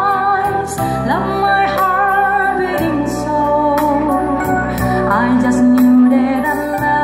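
A woman singing live through a microphone, holding wavering notes, over an electronic keyboard playing sustained chords that change a few times.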